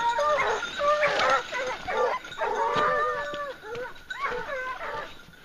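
Hunting hounds baying and yelping, several voices overlapping, fading toward the end.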